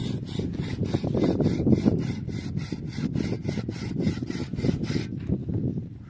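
Fast rhythmic rubbing or scraping strokes, about five a second, easing off near the end.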